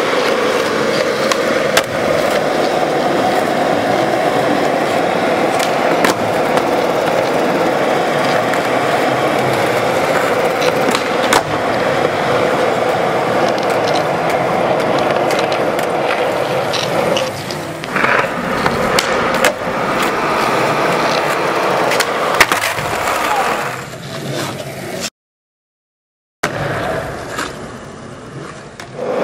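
Skateboard wheels rolling over a smooth concrete floor with a steady hum, broken now and then by sharp clacks of the board popping and landing. Near the end the sound drops out completely for about a second.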